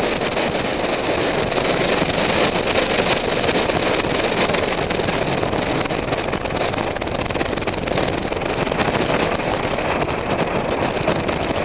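Strong wind of more than 30 mph blowing across the microphone high on a broadcast tower: a steady, loud rushing rumble with no let-up.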